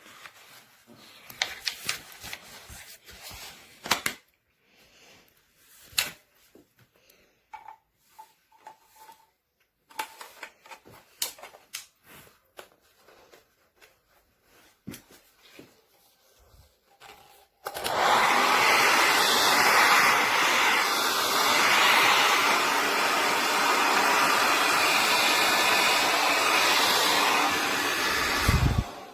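A handheld hair dryer is handled with scattered clicks and knocks, then switched on about two-thirds of the way in. It blows with a loud, steady rush of air for about eleven seconds, then is switched off near the end.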